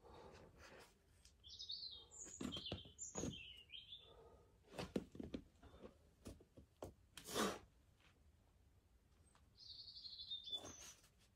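Small birds chirping in short high calls, in a cluster near the start and again near the end. In between come several short scuffs and knocks from a boulderer's hands and climbing shoes on sandstone, the loudest about five and seven seconds in.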